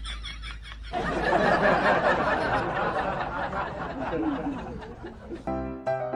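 People snickering and laughing with some chatter. A short musical sting of stepped notes starts near the end.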